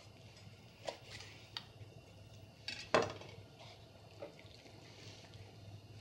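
Knife working through a raw chicken on a cutting board: a few light taps and a short scrape, the sharpest knock about three seconds in.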